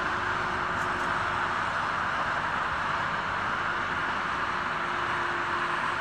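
Steady hiss of road traffic and construction-site noise, with a faint hum that fades in and out.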